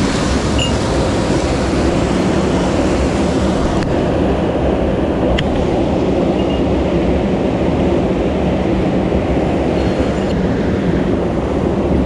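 Mountain headwater stream rushing over boulders close by: a loud, steady, deep rush of water, with one faint click about five seconds in.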